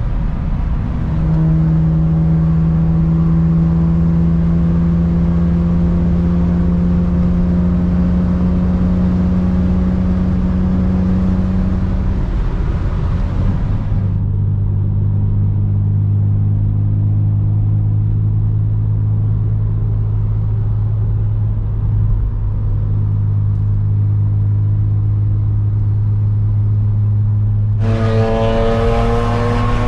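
BMW E46 M3 S54 straight-six engine pulling steadily, its pitch creeping slowly upward. About fourteen seconds in it gives way to a lower, steady engine drone, and near the end the engine note climbs quickly as the car accelerates.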